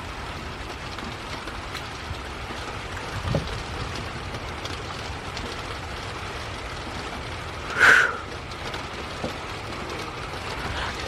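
Steady rain falling in a thunderstorm, an even hiss throughout. About eight seconds in, one short, sharp sound stands out above it.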